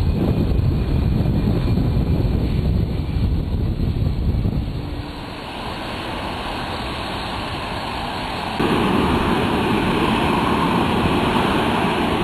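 Airliner jet engines on an airfield: a heavy low rumble for the first few seconds as a jet moves along the runway, then a quieter stretch, then a sudden step up to a louder, hissing jet roar from about eight and a half seconds in as a Boeing 737 taxis close by.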